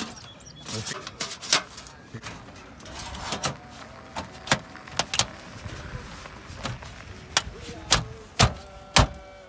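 Steel roofing pieces being worked and fitted by hand: a series of sharp knocks and clicks, irregularly spaced, as the metal valley and metal shingles are spread with a hammer and pressed together.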